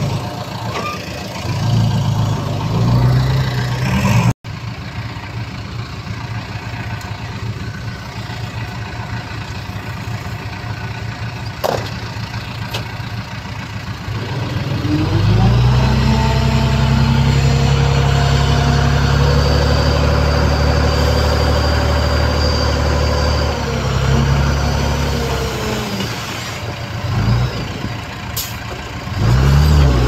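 Heavy diesel engines of earthmoving machines running. About halfway through, one engine rises in pitch and holds loud and steady for several seconds as if under load, then drops back.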